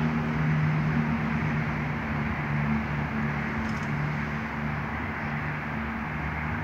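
A steady low mechanical hum, like an engine running, over a constant rushing background noise.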